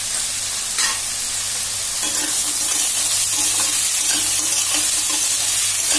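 Chopped bottle gourd and chickpeas sizzling in hot mustard oil in a steel kadai while a spatula stirs them. There is one tap about a second in. The sizzle grows louder about two seconds in as the stirring turns the pieces over.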